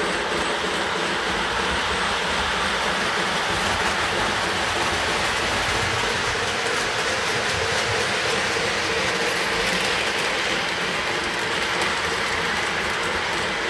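Lionel O-gauge model trains running on the track: a steady rumble and clatter of the wheels and the geared motors as freight cars and then a steam locomotive with passenger cars roll past.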